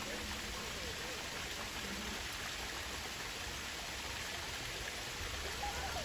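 Steady rushing of water, an even hiss with no distinct events.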